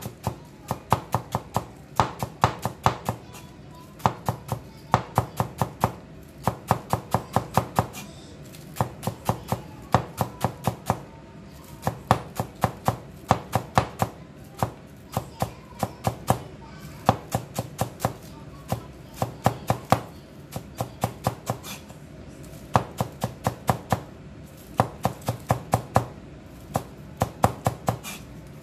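Cleaver chopping green onions on a wooden cutting board: fast runs of sharp knocks, several a second, broken by short pauses.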